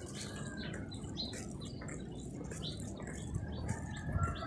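Birds chirping in short, scattered calls over a low background rumble.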